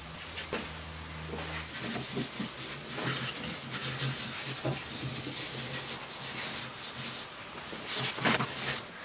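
Rubbing and scraping handling noises with several sharp knocks, the loudest about 8 seconds in, over a low hum.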